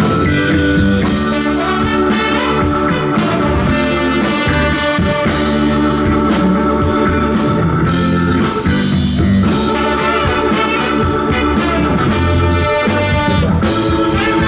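Full funk band playing live after a count-in: horn section with trumpets over drum kit, bass and electric guitar, loud and steady.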